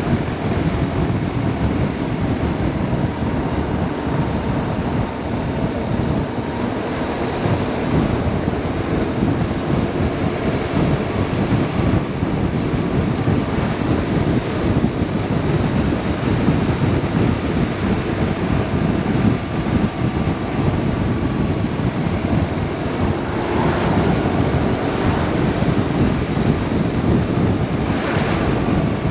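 Wind buffeting the camera microphone on a moving motorcycle, with the BMW R 1150 RS's boxer twin engine running underneath at a steady cruise.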